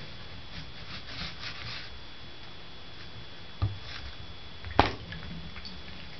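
Birman cat playing at a bathtub drain: a few soft scratchy rubbing sounds, then two sharp taps on the tub about a second apart, the second louder.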